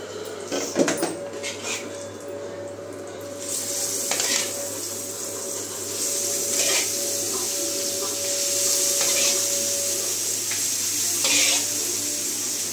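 A metal spatula clinking and scraping against a steel bowl of masala-marinated fish, then fish pieces sizzling in hot oil in a frying pan. The steady hiss begins a few seconds in and flares up briefly several times as more pieces go in.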